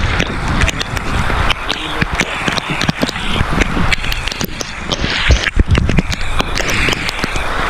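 Rain pattering on an umbrella held close to the microphone: dense, irregular ticks over a steady hiss, with a low wind rumble on the microphone.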